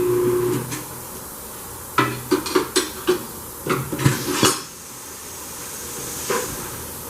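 A tire-changing machine's hum cuts off about half a second in. About two seconds in comes a quick run of about a dozen sharp metal clanks and knocks from tire-changer work on a wheel rim, over roughly two and a half seconds.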